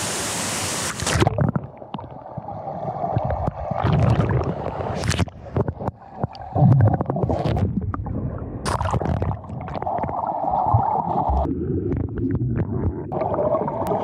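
Water gurgling and sloshing close to the microphone, muffled, with irregular knocks and bumps. Full, hissing water noise for about the first second, then dull and muffled.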